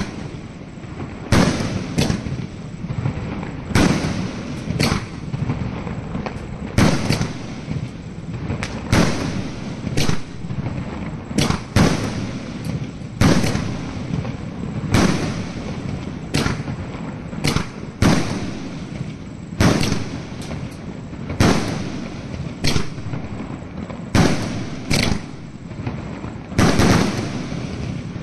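Fireworks cake firing a long string of aerial shots: sharp bangs at uneven intervals, about one a second, with a continuous hiss between them.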